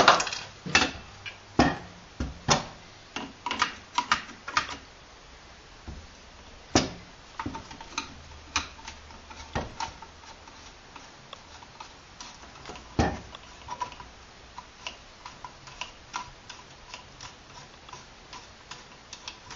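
Flathead screwdriver turning out the long grip screw of an AMD-65 rifle: a run of irregular small clicks and taps, with a few sharper knocks in the first few seconds and again around seven and thirteen seconds in.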